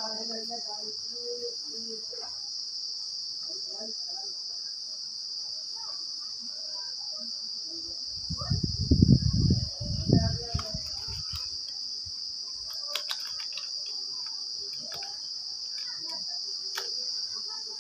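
Steady, high-pitched chirring of insects. About eight to ten seconds in there is a loud low rumble on the microphone, and near the end a few faint clicks.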